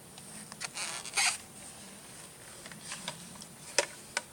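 Plastic airsoft gun parts being handled and fitted: scattered light clicks, a short scraping rustle about a second in, and a few sharper clicks near the end.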